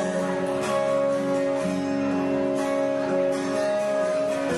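Instrumental ending of a Thai ballad with no singing: held chords with a strummed stroke about once a second.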